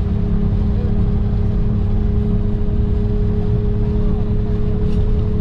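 Marshrutka minibus driving at steady speed, heard from inside the cabin: a continuous low engine and road rumble with a steady hum.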